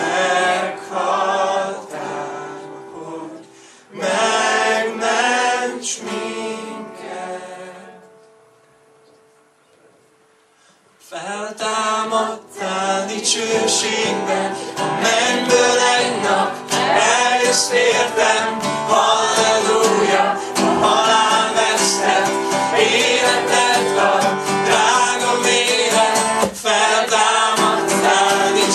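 A man singing a worship song to his own acoustic guitar. The music thins to one fading note and almost stops about eight seconds in, then starts again about three seconds later with fuller, steady strumming.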